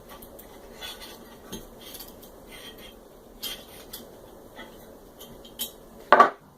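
Metal tool scraping and clinking against the metal parts of a microwave magnetron while its washer and magnet are pried off, with scattered small clicks and one louder metallic clack near the end.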